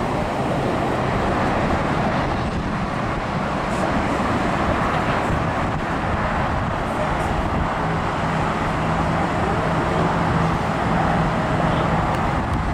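Steady road traffic noise, the continuous rush of vehicles on a highway. A low engine hum joins for a few seconds in the second half.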